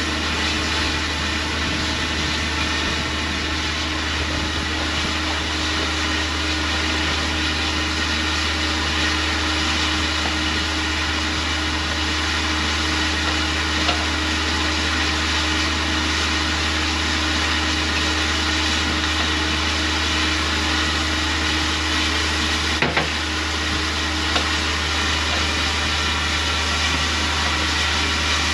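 Steady low rumble with a broad hiss and a faint constant hum, like an engine running without change. Two or three short knocks come about 23 and 24 seconds in.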